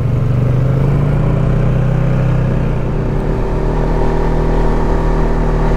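ATV engine running steadily while riding, its note swelling slightly about two seconds in.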